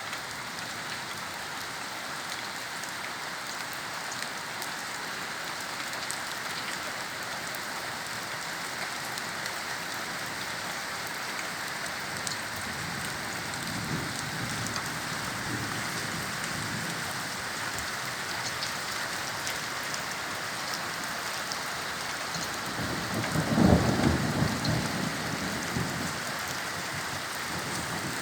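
Steady heavy rain falling, with a faint low rumble of thunder about halfway through and a louder roll of thunder near the end.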